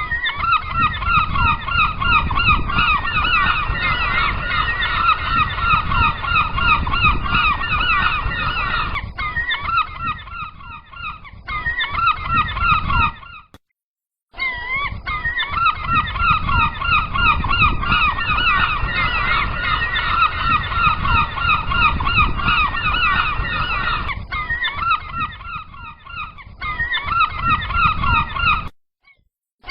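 A flock of gulls calling nonstop, many cries overlapping, over a low rushing background. The sound cuts out for under a second about halfway through, then picks up again.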